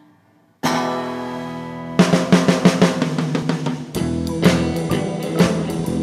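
A rock band with drum kit, electric guitar and keyboard starts a song. After a brief silence, a held chord rings out. The drums come in with quick snare hits about two seconds in, and the full band with bass joins about four seconds in.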